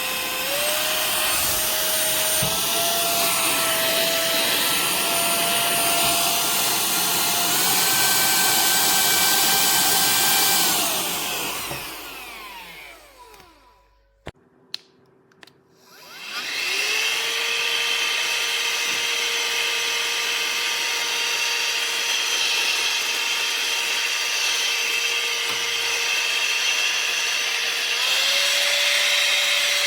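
Tiazhan handheld vacuum and air-blower motor running with a high whine over a rush of air, its pitch stepping up a notch twice. It is switched off about halfway through and spins down in a falling whine, followed by a few clicks in a short quiet gap. It then starts again and steps up once more near the end.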